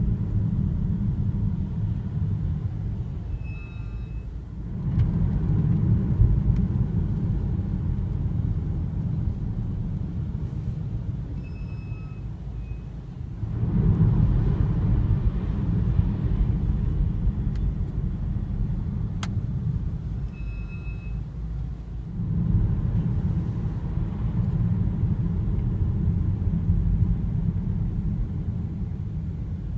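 Brakes of a BMW F30 320i giving three brief high-pitched squeals, each as the car slows. Under them is the steady low rumble of the car driving. The squeal is a persistent fault that five dealer services have not cured.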